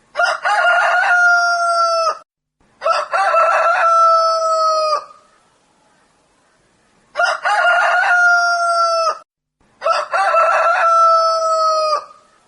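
A rooster crowing four times in two pairs. Each crow lasts about two seconds and ends in a long held note that dips slightly just before it cuts off.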